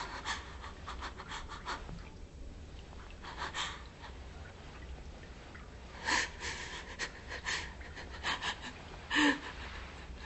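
A woman panting and gasping in distress, in clusters of short, sharp breaths. A louder, voiced gasp comes about nine seconds in.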